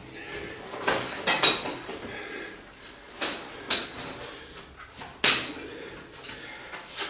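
Metal frame of a folding camp stretcher knocking and clicking as its end sections and legs are folded out, a handful of sharp knocks spread over several seconds with some rustling of the fabric bed.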